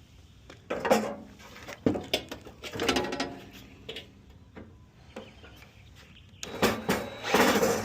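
Ryobi cordless drill-driver running in short bursts as it backs screws out of a tankless water heater's sheet-metal casing, with sharp clicks of metal between the bursts.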